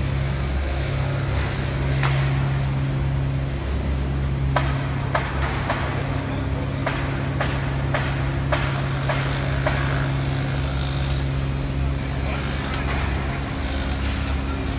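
Construction-site noise in an underground subway-station excavation: a steady low machine hum, a run of sharp knocks and clanks in the middle, and a high hiss that comes and goes in the second half, with faint voices in the background.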